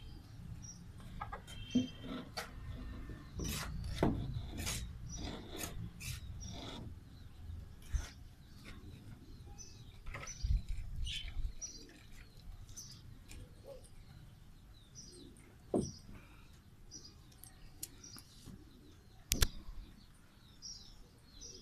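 Small birds chirping repeatedly, with scattered sharp knocks and clicks, bunched most closely in the first seven seconds and one louder knock near the end.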